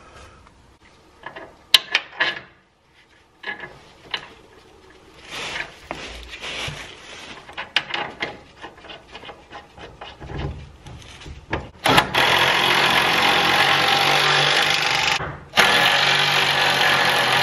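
Scattered clicks and clanks of hand tools and metal parts. Then a cordless power tool runs twice, about three seconds and then two with a brief break, driving in the bolts of a truck's transmission cross member.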